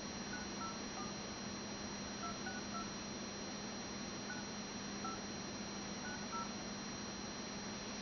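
Phone keypad touch tones dialing a ten-digit phone number: short beeps in groups of three, three and four, over a steady faint hiss.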